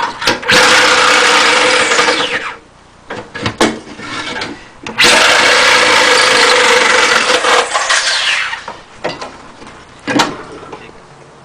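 Milwaukee Sawzall reciprocating saw cutting through a vehicle's sheet-metal floor in two long runs, about two and three seconds, its motor winding down in pitch after each. A few knocks and clicks follow between and after the cuts.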